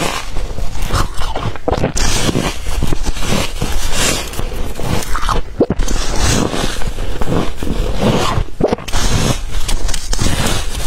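Teeth biting and crunching through a big lump of packed freezer frost: a dense, almost continuous run of crisp, squeaky crunches.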